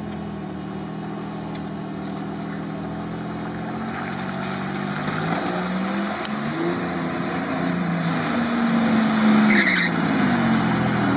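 Toyota 4Runner's engine revving up and down as it drives through a flooded, muddy track. It grows louder as the SUV comes closer.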